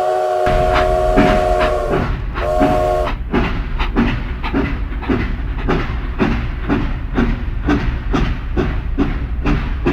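Steam locomotive whistle sounding a long chord, then a short second toot, over a low rumble of the train getting under way; steady rhythmic chuffing and rail clatter of about three beats a second follow to the end.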